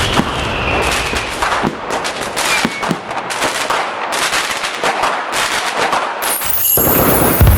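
Fireworks crackling: a dense, rapid run of sharp cracks and pops, followed by a deep boom near the end.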